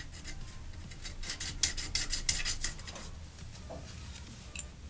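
Metal clinking and scraping as a new wheel hub is worked onto the threaded end of a go-kart's rear axle, with a quick run of light clinks in the middle.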